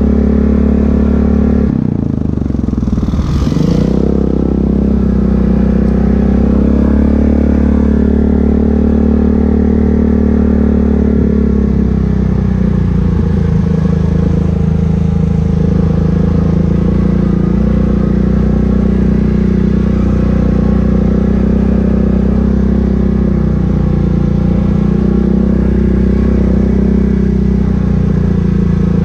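ATV engine running steadily at trail speed, with a brief clatter and a dip in engine note about two seconds in. The note eases down a little around twelve seconds and then holds steady.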